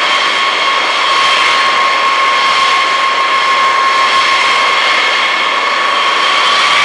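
Boeing B-52H Stratofortress's eight TF33 turbofans running at low taxi power: a steady high whine over a rushing jet noise, the whine dipping slightly in pitch midway and rising again near the end.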